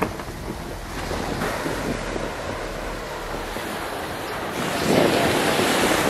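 Waves washing in the surf, with wind rumbling on the microphone; the wash grows louder about five seconds in.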